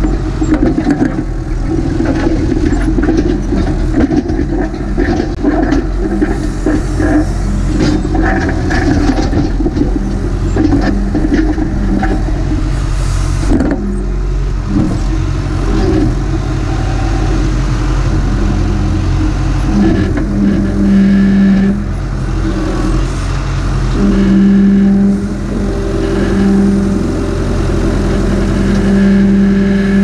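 Massey Ferguson MF50E backhoe's diesel engine running under working load, the revs rising and falling as the hydraulics work the boom and bucket. In the second half a steadier drone sets in for stretches of a couple of seconds at a time.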